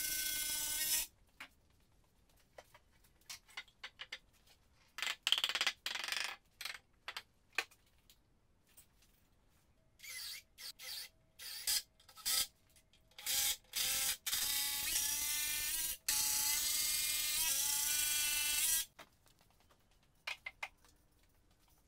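Power drill running: a steady whine of about a second at the start and another of four to five seconds from about two-thirds in. Between these come many short trigger blips and clicks.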